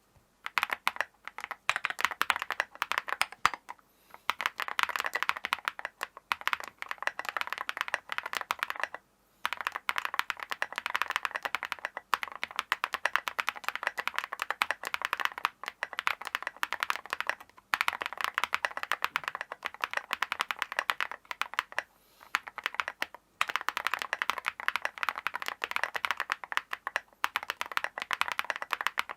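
Fast typing on a Percent Studio Trio 75 custom mechanical keyboard with a tape mod: a rapid, continuous run of keystrokes that breaks off briefly four times.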